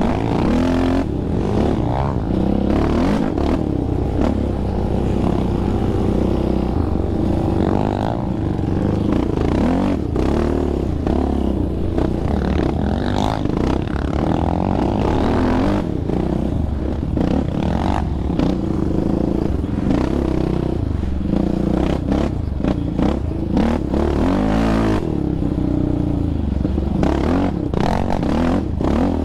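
Yamaha Raptor 700R sport quad's single-cylinder four-stroke engine running under way, its pitch rising and falling as the throttle is worked, with rattles and knocks from the quad jolting over ruts.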